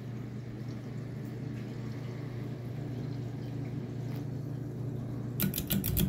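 Hampton Bay Regatta 30-inch ceiling fan running, with a steady low motor hum and a soft rush of air from the blades. In the last half second its pull chain is tugged, giving a quick run of sharp clicks from the chain and switch.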